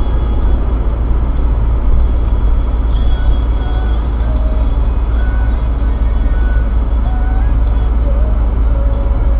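Steady low rumble of a car's road and engine noise picked up inside the cabin by a windshield dashcam as the car slows in traffic.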